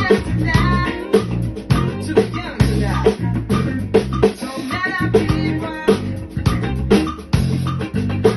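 Fender Custom Shop electric bass playing a funk bass line over a backing track with drums and singing.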